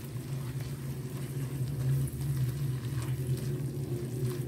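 Masala frying in oil in a wok while it is stirred with a silicone spatula, a soft sizzle with light scrapes, over a steady low hum.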